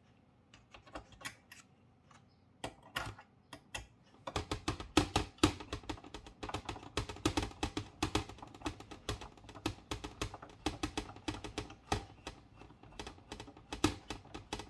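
Hand screwdriver driving and tightening small screws into a monitor's metal PCB housing: quick irregular clicking and ticking of the tool against the screws and metal, a few clicks at first, then nearly continuous from about four seconds in.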